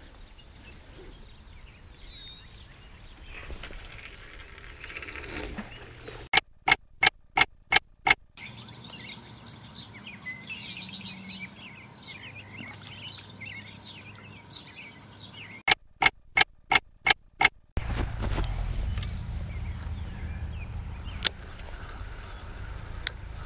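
Outdoor evening ambience with birds chirping. Twice a run of about six sharp, evenly spaced clicks cuts through, about six seconds in and again about sixteen seconds in, and a low steady rumble comes in for the last few seconds.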